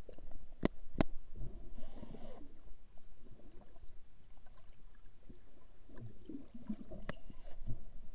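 Underwater sound picked up by a camera in its housing: a low, uneven water-movement rumble, broken by three sharp clicks (two close together about a second in, one near the end) and two short hissing bursts.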